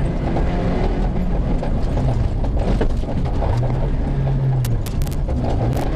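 Citroën C2 rally car's engine running hard from inside the cockpit, its note falling and rising with throttle and gear changes over a constant rush of tyre and gravel noise. A few sharp clicks come near the end.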